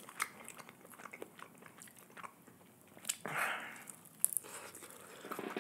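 Close-miked eating of sauce-glazed spicy fried chicken: scattered wet mouth clicks and chewing, with a longer, louder bite a little past three seconds in.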